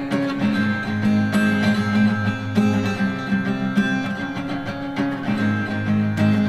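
Music: a lo-fi bedroom-pop song carried by strummed acoustic guitar chords.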